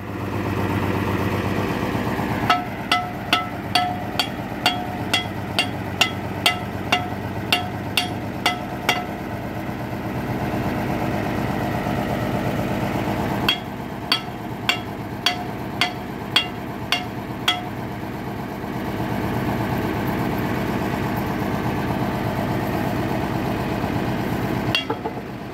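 An engine running steadily, with two runs of sharp metallic knocks that ring briefly, about two a second; the first lasts several seconds and the second begins about halfway through.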